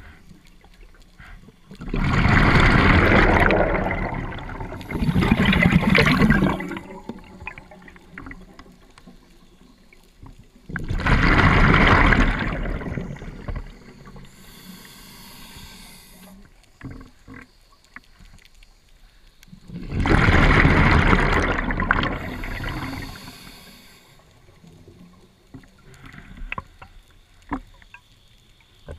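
Scuba diver breathing through a regulator: slow breaths drawn in with a rush of air, each followed by the bubbling gush of exhaled bubbles. There are three breaths, about nine seconds apart.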